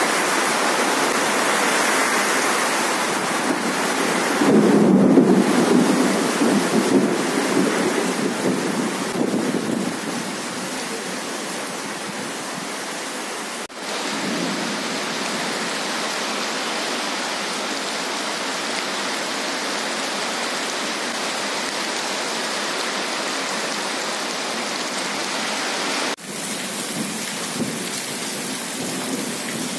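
Heavy rain falling steadily in a storm. About five seconds in, a louder low rumble of thunder rises and dies away by about ten seconds. The rain sound breaks off abruptly twice where recordings are joined.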